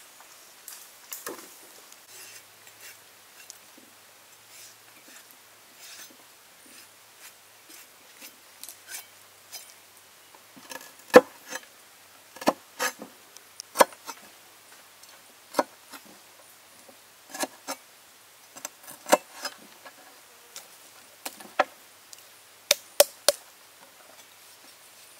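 Knife chopping on a wooden cutting board: irregular sharp strikes, faint taps at first, then loud, spaced-out chops from about eleven seconds in.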